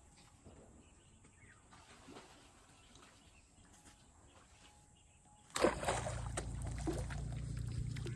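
Faint outdoor background, then about two-thirds of the way through a sudden louder stretch of water splashing and sloshing, with sharp splats over a steady low rumble.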